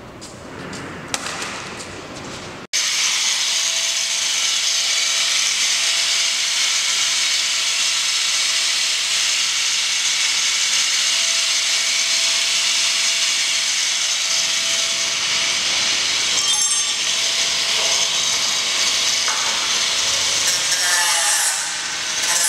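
A power tool running steadily under load, a loud, even, high-pitched cutting noise that comes in abruptly about three seconds in, after a few seconds of quieter workshop noise.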